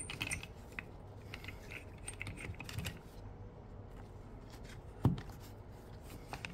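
Faint scattered clicks and taps from hands handling a Sunshine SS-601G metal screen-separator clamp holding a phone under its suction cup, with one sharper knock about five seconds in.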